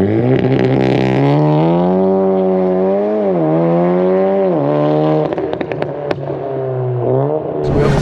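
A Stage 2-tuned VW Golf 7.5R with a custom exhaust and its turbocharged 2.0-litre four-cylinder accelerating hard. The engine note climbs, then drops sharply twice at upshifts about three and four and a half seconds in. After that the engine runs steadier, with a scatter of sharp pops and clicks.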